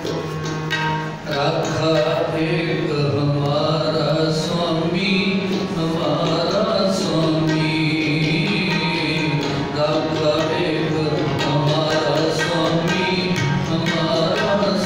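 Sikh kirtan: two Nagi harmoniums and a tabla playing a shabad melody, with voices singing over them.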